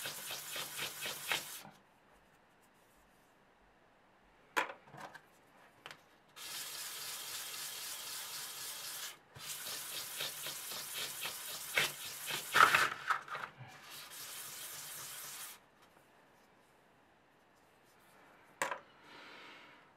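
A small wooden button rubbed quickly back and forth by hand on a sheet of sandpaper: a scratchy rasping of rapid strokes in three runs of a few seconds each, with quiet pauses between. Two sharp clicks, about four and a half seconds in and near the end.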